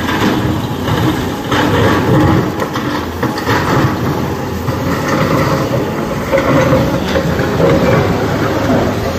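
Heavy diesel tipper truck loaded with rock, its engine running as it creeps over rough quarry ground, with irregular rattles and knocks from the truck and its load.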